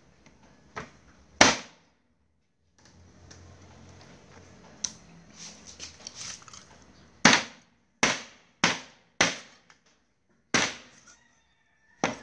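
Heavy cleaver chopping pieces of duck on a thick round wooden chopping board. Two sharp chops come first, then a few seconds of quieter handling of the meat, then six chops in a row about a second apart.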